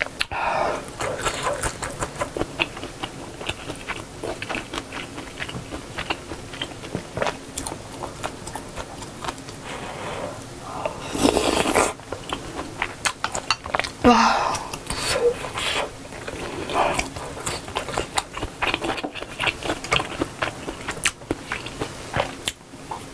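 Close-miked chewing of budae-jjigae stew and rice, with many small mouth clicks, and a loud slurp of broth from a spoon about eleven seconds in.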